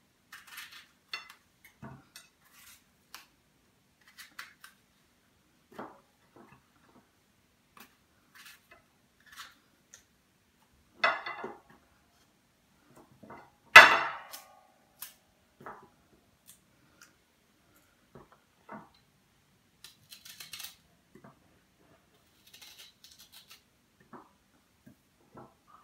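Scattered light clicks and taps of a knife cutting an apple and the pieces going into a blender beaker, with two louder knocks about eleven and fourteen seconds in.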